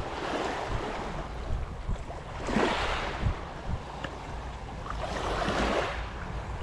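Small waves washing onto a pebbly shore, swelling and easing every two to three seconds, with wind rumbling on the microphone.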